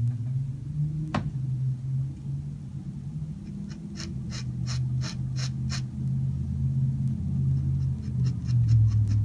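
Metal dip-pen nib scratching on paper in short hatching strokes: a run of about three strokes a second around the middle and a quicker run near the end, with a single tick about a second in. A low, steady drone that shifts pitch lies underneath.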